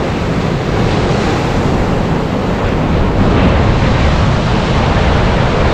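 Ocean surf washing along the shore, with wind buffeting the microphone: a steady, loud rush of noise.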